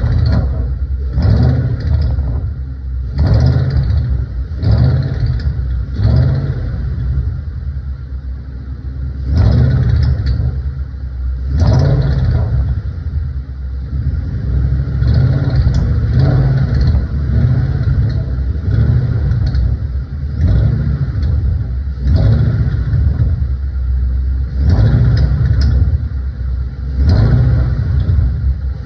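A 2012 Shelby GT500's supercharged 5.4-litre V8 being blipped over and over to low revs, around 1,200 rpm, each rise about a second long with idling between. A rattling, ticking noise comes with the revving, its cause unknown.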